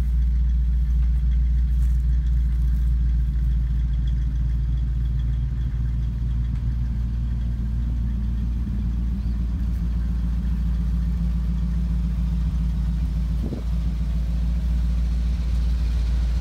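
1966 Chevrolet 60 grain truck's engine idling steadily.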